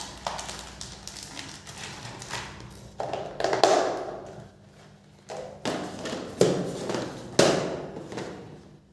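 A series of taps and knocks from small tools and phone parts being handled on a work surface, each knock fading quickly.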